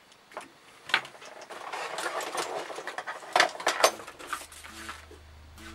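Hands working on a metal-and-plastic RC car chassis with a hex driver: small metal parts and tools clicking and rattling, with a few sharp clicks about a second in and twice near the middle.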